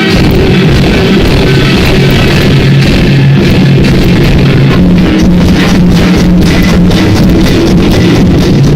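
Loud music played over a sonido sound system, with held notes and a steady beat that grows plainer about halfway through.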